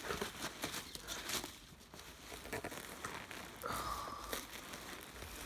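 Rummaging through foam packing and polystyrene packing peanuts in a cardboard box: crinkling and rustling with scattered small clicks, and a brief squeak about four seconds in.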